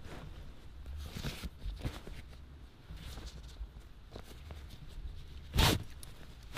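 Fabric rustling and handling noises as clothes are pressed down into a cloth drawstring backpack. About five and a half seconds in, a short, louder swish as the bag's drawstring is pulled shut.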